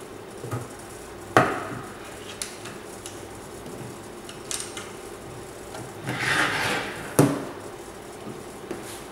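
Wooden-framed panels of a portable pedestal being folded shut into a carrying case: two sharp knocks as the sections close, about one and a half seconds in and again near seven seconds, with a scraping slide of the panels just before the second knock and a few small clicks between.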